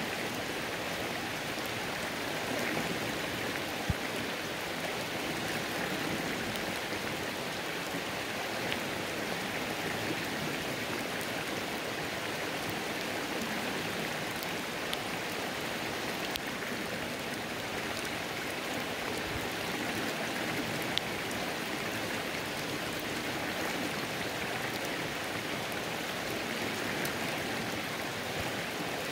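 Rain falling on a creek: a steady hiss of rain and flowing water, with scattered sharper drops ticking here and there.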